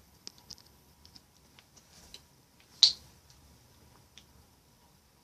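Homemade slime being handled and kneaded, giving scattered small sticky clicks, then one sharp, loud snap about three seconds in.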